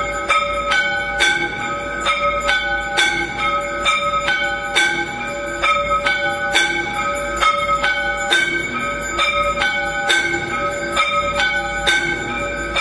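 Temple bells rung continuously for aarti: several bells of different pitch struck in quick succession, about three strikes a second, each ringing on.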